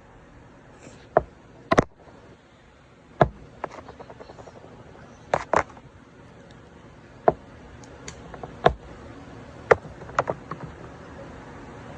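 Irregular sharp taps and knocks, about a dozen spread unevenly, some in quick pairs, over a low steady hiss.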